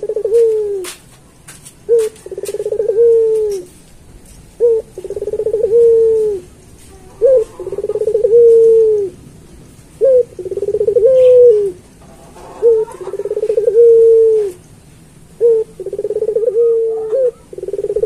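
Puter pelung, a domestic Barbary dove, cooing over and over. About every two and a half seconds it gives a short opening note and then a longer rolling coo that drops in pitch at the end, about seven times in all.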